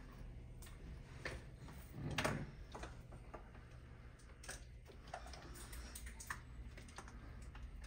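Faint, irregular light clicks and taps of small objects being handled, with one louder knock about two seconds in, over a low steady hum.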